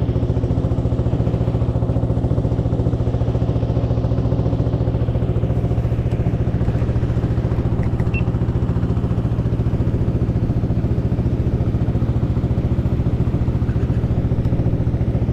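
Longtail boat's engine running at a steady speed, a loud, even, rapid pulse with no change in pitch.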